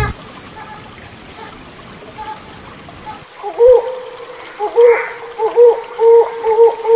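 Hornbill calling: after about three seconds of steady background hiss, a run of short, pitched call notes begins about halfway in. The notes repeat about twice a second and quicken toward the end.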